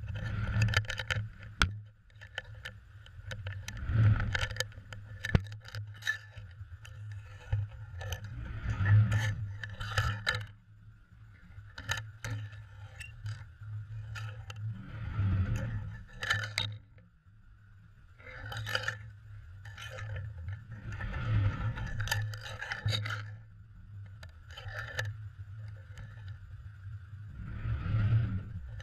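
Underwater sound picked up by a GoPro in its waterproof housing mounted on a cod jigger: a rush of water swells every few seconds as the jigger is jerked, over a steady low hum. Sharp clicks, clinks and scrapes come throughout as the rig's metal hook and fittings knock against the housing.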